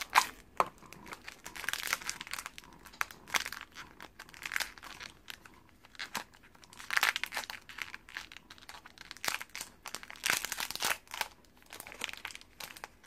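Crinkly plastic Shopkins blind bag being torn open and handled, in irregular bursts of crackling and tearing.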